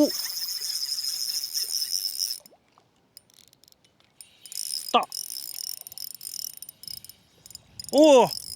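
Lanniao spinning reel being cranked to retrieve line, giving a fast, even rattling. It runs for about two and a half seconds, stops, then starts again about a second later. This is the abnormal noise of the reel, which the angler traces to the line roller and the gearbox.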